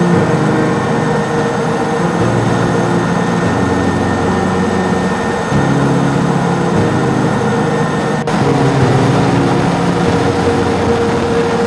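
Super Puma helicopter heard from inside the cabin: the engines and rotor make a steady loud whine and rumble.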